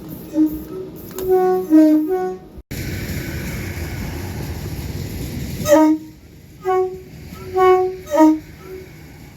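Train's two-tone horn sounding a run of short blasts that alternate between a high and a low note, twice. Between the two runs there is a steady rushing noise.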